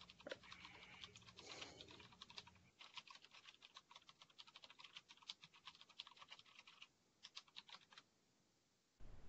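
Faint typing on a computer keyboard: a quick, uneven run of key clicks that stops about a second before the end.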